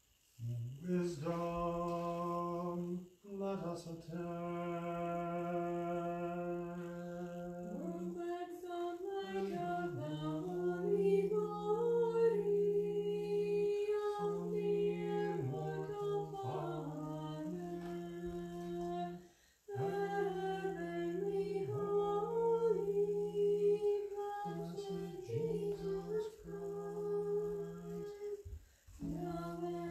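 Unaccompanied Orthodox liturgical chant by a small group of singers. One voice holds a steady low drone while another carries a moving melody above it, with short breaks about three seconds in, around twenty seconds and near the end.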